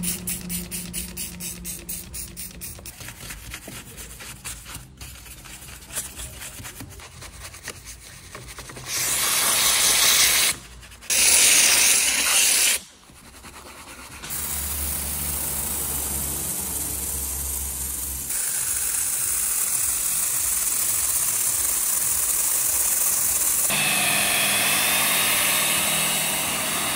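Car-seat detailing work: quick rhythmic scrubbing strokes, then two loud hissing spray bursts in the middle, then steady machine noise, ending with a rotary polisher fitted with a scrub brush running with a steady whine on the foamed seat fabric.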